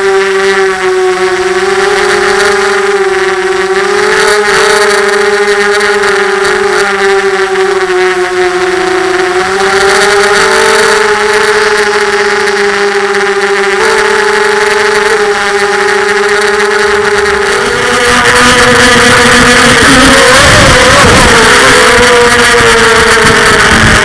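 FPV racing quadcopter's electric motors and propellers whining, the pitch holding fairly steady and shifting slowly with throttle. Near the end it turns louder and rougher, the pitch wavering up and down.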